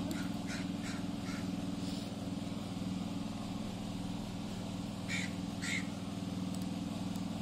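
A steady low mechanical hum with a few faint, short high chirps over it, a cluster in the first two seconds and two more about five seconds in.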